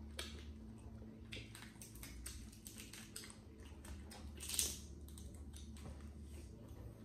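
Close-up eating sounds: boiled crawfish shells crackling and clicking as they are cracked and peeled by hand, mixed with chewing. One louder, brief rushing noise about four and a half seconds in.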